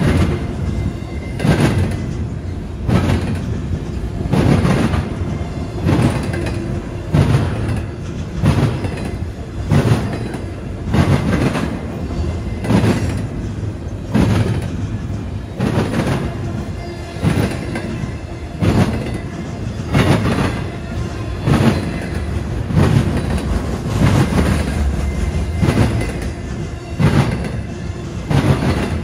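Double-stack intermodal freight train rolling past, its wheels clacking over rail joints at a regular beat of about one to two clacks a second, over a continuous low rumble.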